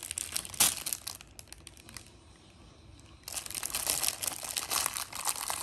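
Plastic packaging crinkling and crackling as it is handled, with a quieter pause in the middle before the crinkling resumes.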